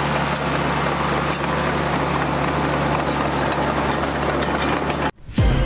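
John Deere 450G long-track crawler dozer's diesel engine running steadily as it pushes dirt with its blade, with scattered clicks. Near the end it cuts off suddenly and music begins.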